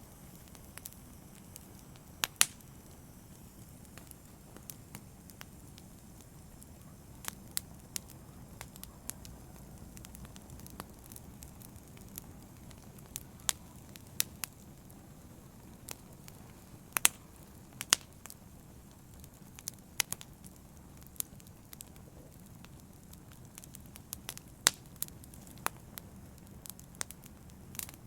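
Wood fire burning with a low steady rush and irregular sharp crackles and pops, a few of them loud.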